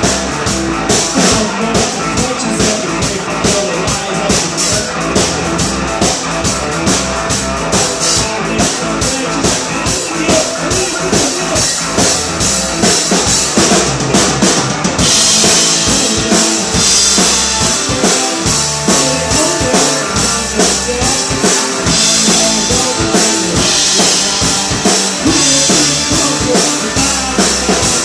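Live band playing: electric guitar, bass guitar and drum kit, with a steady driving drum beat out front. About halfway through, the cymbals get louder and brighter.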